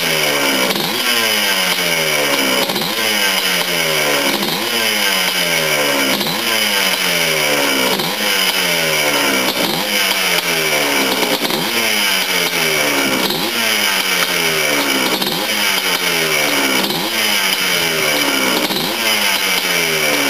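Yamaha Blaster ATV's air-cooled two-stroke single-cylinder engine running through a break-in heat cycle, its freshly rebuilt motor kept off idle: the throttle is blipped about every two seconds, so the revs jump up and fall away again in a steady rhythm.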